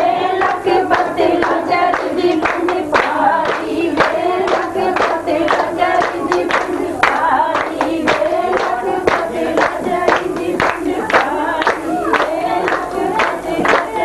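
Several voices singing together to steady rhythmic hand-clapping, about two claps a second.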